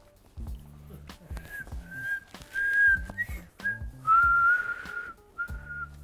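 A man whistling a tune through pursed lips: a run of short notes starting about a second and a half in, then one longer held note about four seconds in, followed by more short notes.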